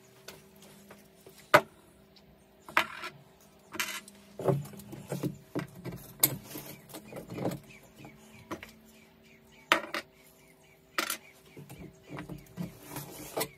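Irregular sharp metal clicks and knocks as bolts are fed through a steel punch-bag wall bracket into a wooden door and the bracket is handled, the loudest about a second and a half in. A faint steady hum sits underneath.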